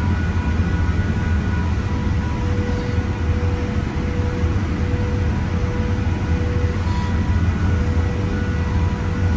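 Steady drone of boiler-house machinery: a constant low hum with a few steady whining tones held over it.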